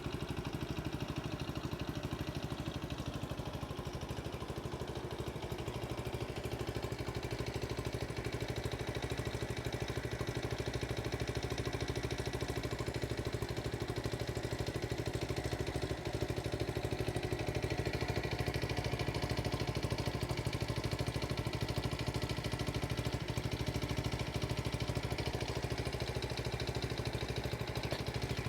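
1970 Honda CT70H's 72 cc single-cylinder four-stroke engine idling steadily.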